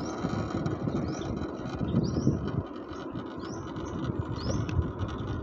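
Low, uneven rumble of a vehicle moving slowly on the road, with a bird repeating a short rising chirp about once a second.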